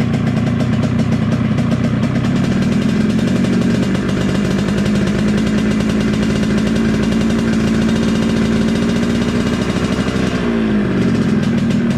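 Yamaha RX-King's two-stroke single-cylinder engine running steadily at a fast idle while it is being tuned for the growling 'ngorok' exhaust note. About ten seconds in the revs dip briefly and then recover.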